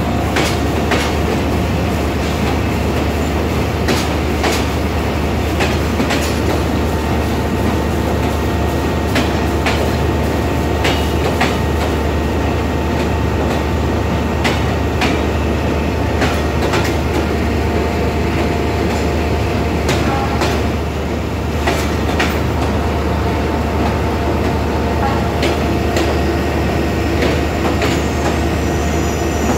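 Passenger coaches of a Vietnam Railways express train rolling slowly into the station. There is a steady rumble of wheels on rail, with irregular sharp clicks as the wheels cross rail joints and points, and a faint steady whine.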